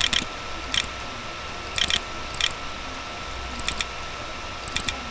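Computer mouse button clicking, about six quick double clicks at irregular intervals about a second apart, as letters are picked on an on-screen keyboard. A steady hiss and low hum run underneath.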